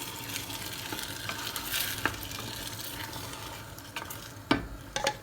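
Sautéed okra sizzling in a pot under freshly added blended tomato juice while it is stirred with a spoon, the sizzle slowly dying down. A few clicks and two louder knocks of the spoon against the pot near the end.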